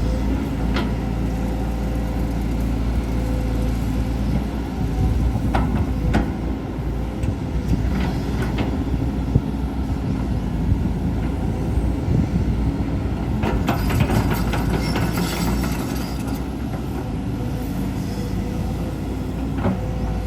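Volvo EC210D excavator working, its diesel engine running steadily with a deep rumble, with scattered sharp knocks and a short burst of clattering about two-thirds of the way through.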